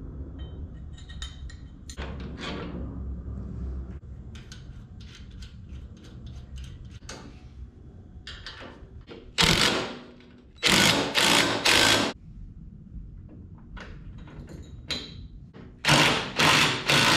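Bolts and hardware clinking by hand, then a cordless impact driver running bolts down in short loud bursts: one about halfway through, two or three more close together soon after, and another run near the end.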